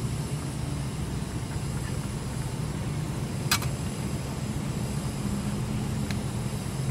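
Steady low rumble of traffic with a propane camp stove burning under a boiling canteen cup. About halfway through comes one sharp metallic clink as the canteen cup's metal lid is set down on the stove stand.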